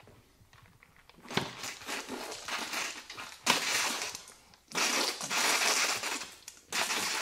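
Thin plastic soda bottle crinkling and crackling in repeated bursts as it is gripped and drunk from. It starts about a second in and is loudest in the second half.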